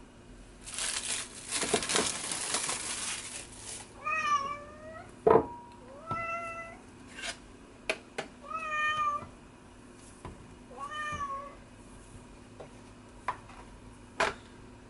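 Plastic cling film crinkling as it is pulled off a bowl, then a cat meowing four times. A sharp thump comes about five seconds in, with a few light knocks after it.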